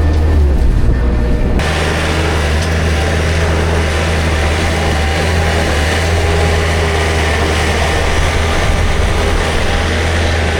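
Farm machine engine running steadily with a deep hum. About a second and a half in, a louder rushing noise joins it and carries on.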